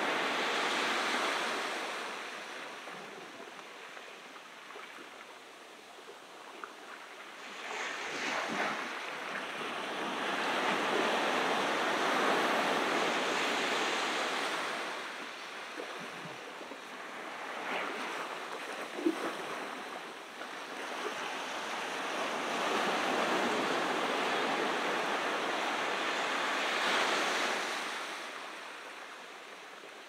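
Ocean surf breaking and washing up the beach. The noise swells and falls away in slow surges several seconds long, and a single sharp tick comes about two-thirds of the way through.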